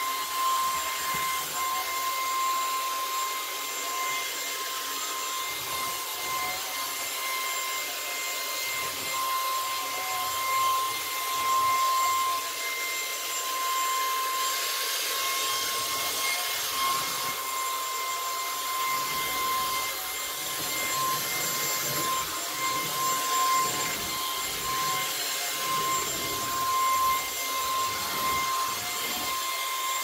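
Lupe Pure cordless stick vacuum running on a hard floor: a steady high motor whine over a constant rushing hiss of air.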